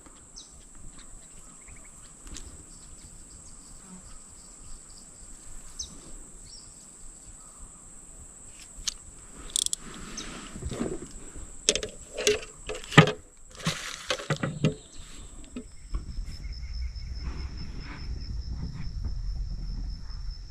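Insects droning with a steady, very high-pitched note. About two-thirds of the way in, a lower, pulsing insect trill takes over. Scattered sharp clicks and knocks sound through the middle, and a low rumble sets in near the end.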